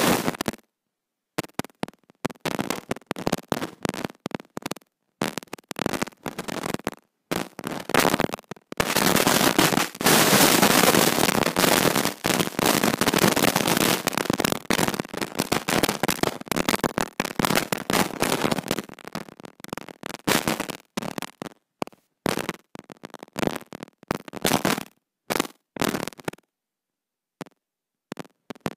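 Wind buffeting the phone's microphone, with crackling gusts that cut out abruptly to silence between them. There is one long, loud stretch about nine to fourteen seconds in.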